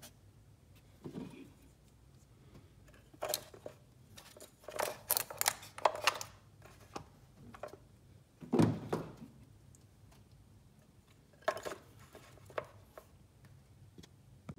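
Hand tools and parts being handled during reassembly after a spark plug change: scattered clicks and clatters, a quick run of them a few seconds in, and a heavier knock just past the middle, the loudest sound.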